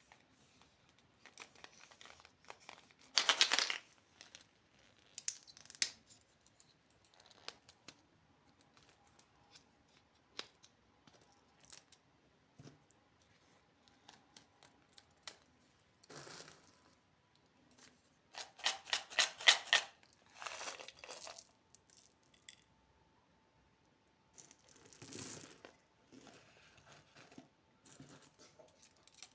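Candy wrappers being torn open and crinkled in several short bursts with quiet gaps between. The loudest is a run of quick crackles about two-thirds of the way through.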